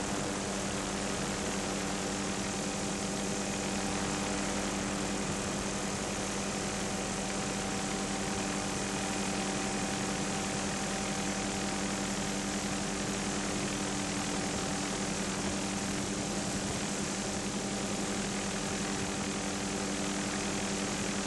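Steady drone of the aircraft filming from the air: its engine holds several constant pitches over an even rushing hiss.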